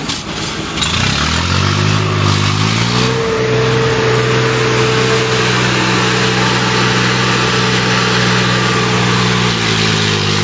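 Tractor diesel engine revving up over about two seconds, then held steady at high revs, dropping back a little near the end.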